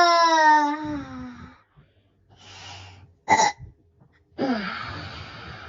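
A person crying: a drawn-out wail that falls in pitch and fades in the first second and a half, then sobbing breaths with a short, sharp hiccup-like sob in the middle.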